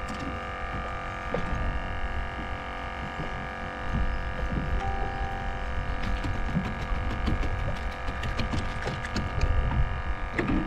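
A steady droning hum made of several held tones over a low rumble. From about six seconds in it is joined by a run of light clicks and taps as fishing tackle is handled in the boat.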